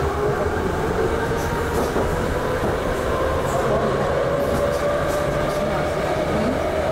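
Hamburg U-Bahn train running through a tunnel, heard from the driver's cab: a steady rumble of wheels on the rails with an electric motor whine slowly rising in pitch as the train speeds up.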